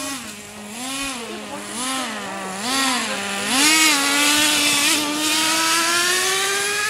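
Gas-powered RC car's small two-stroke engine blipping its throttle about once a second, then held at higher revs from about halfway in, its pitch slowly climbing.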